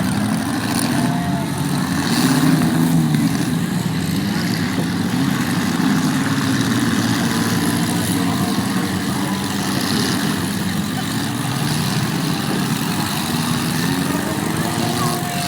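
Demolition derby cars' engines running and revving, the pitch rising and falling several times.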